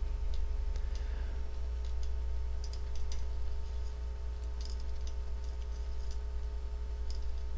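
Metal knitting needles clicking lightly a few times as stitches are knit along the row, over a steady low hum.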